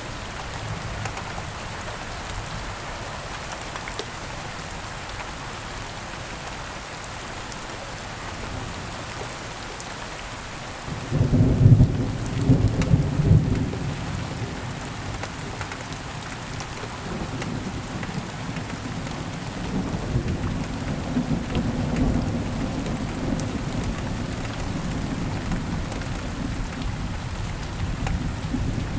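Steady rain falling during a thunderstorm. About a third of the way in, a loud thunderclap breaks into a deep rumble that lasts a few seconds, and a longer, quieter roll of thunder follows under the rain.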